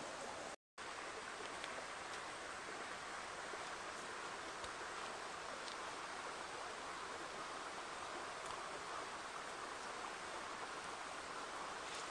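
Steady rushing of a forest creek flowing, broken by a brief gap of total silence just under a second in.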